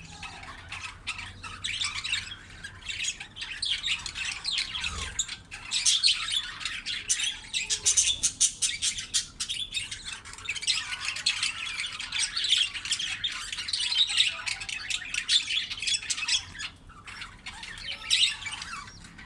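Budgerigar chicks giving rapid, high-pitched squawking begging calls, close together and almost without pause: nestlings begging to be fed by the mother.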